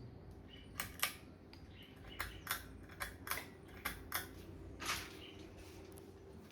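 Ceiling fan motor humming steadily, with a dozen or so sharp clicks at irregular intervals over it.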